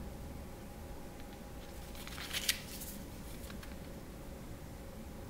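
A small plastic parts bag being handled, crinkling briefly about two seconds in, with a few faint ticks after, over a faint steady hum.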